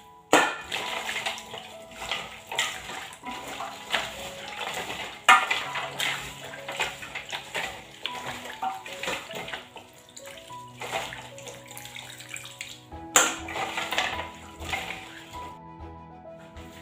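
A hand squeezing and swishing pounded palm nut fibre in a stainless steel bowl of palm fruit liquid, pressing out the pulp: wet squelching and splashing, loudest near the start, about five seconds in and about thirteen seconds in, dying away near the end. Background music plays under it.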